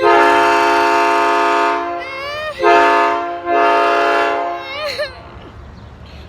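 Train horn sounding a loud chord of several steady tones: one long blast of about two seconds, then after a short break two more blasts in quick succession, dying away about five seconds in.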